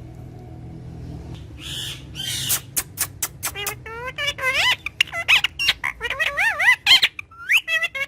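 A pet parrot calling: after a quieter start, a harsh squawk about two seconds in, then a fast run of whistles whose pitch swoops up and down, with sharp clicks between them.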